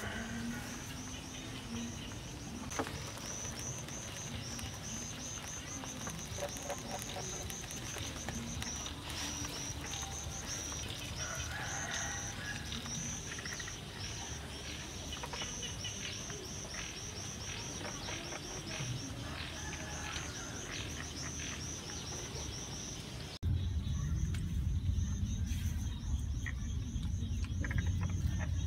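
Insects chirping in a steady, fast pulsing trill, with scattered small clicks and crackles. About three-quarters of the way through, a cut brings in a loud, steady low rumble under the chirping.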